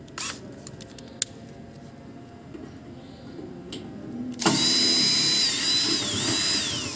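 Cordless drill-driver backing screws out of a planer's sheet-metal cover. A couple of faint clicks come first; then, about four and a half seconds in, the motor starts with a high whine. The whine dips in pitch under load and falls away near the end as it winds down.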